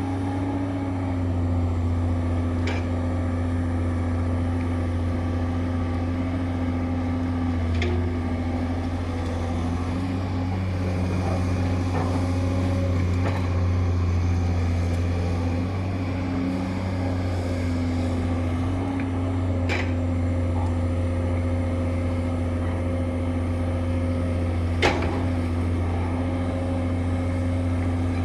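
Excavator's diesel engine running steadily with a deep, even hum, and a few sharp knocks at scattered moments.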